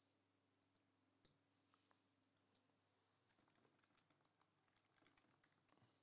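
Near silence: faint room tone with a few very faint, scattered clicks, more of them in the second half.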